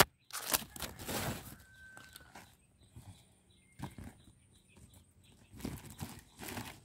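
Rustling and crinkling of gear being handled and stuffed into a bag, in irregular short bursts.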